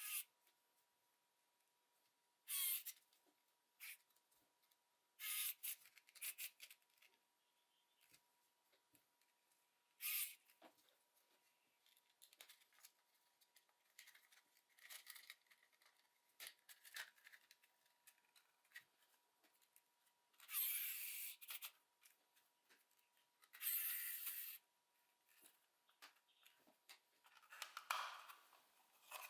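Close-up handling of a Logitech G304 mouse's small plastic parts during disassembly or reassembly: scattered light clicks and taps with several short scraping, rasping noises, the longest about two-thirds of the way through.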